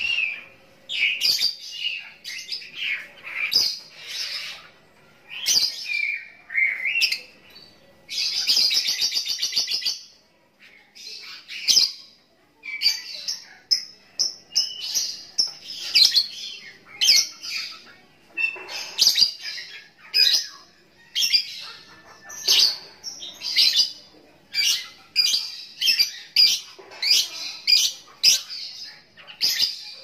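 Lovebird calling: repeated short, shrill chirps, with a rattling trill of about two seconds some eight seconds in, then a steady string of sharp chirps about one or two a second.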